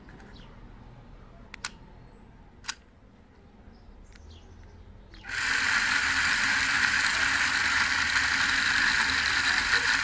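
Small DC gear motor of a toy RC car running, driven through an L298N motor driver: a steady mechanical gear noise that starts abruptly about five seconds in and holds level. Two light clicks come before it.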